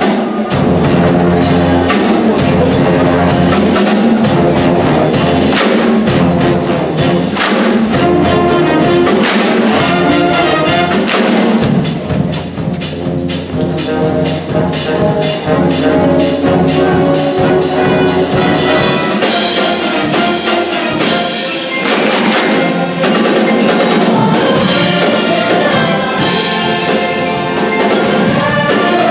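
A large school orchestra and band playing together, strings and brass under bright struck mallet percussion (glockenspiel, xylophone, chimes). The music is loud and full, easing off briefly about halfway through.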